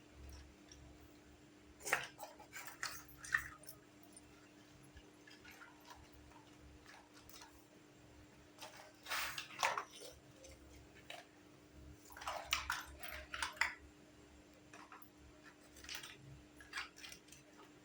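Small plastic toy kitchenware being handled, with light clicks and taps in four short clusters: about two seconds in, around the middle, just after it, and near the end.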